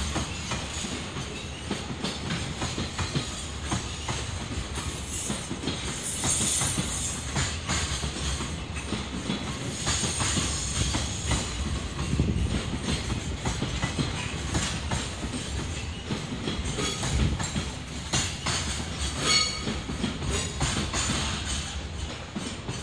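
Freight container wagons rolling past on steel rails, wheels clattering over the rail joints, with a high wheel squeal about five to seven seconds in. The rolling dies away near the end as the last wagon goes by.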